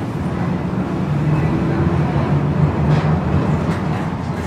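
Tram running along the street, heard from inside the car: a steady low hum from the motors with the noise of the wheels on the rails.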